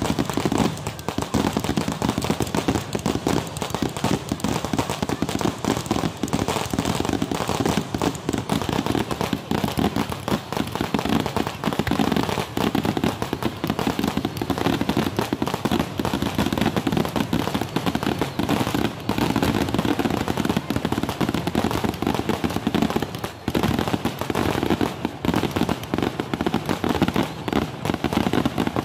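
Kerala temple-festival fireworks (vedikettu): a dense, unbroken barrage of firecracker bangs and aerial shell bursts, with crackling between them.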